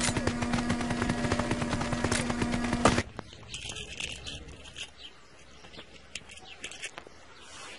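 A buzzing, clicking mechanical sound with a steady hum, cutting off abruptly about three seconds in; then faint scrapes and light taps.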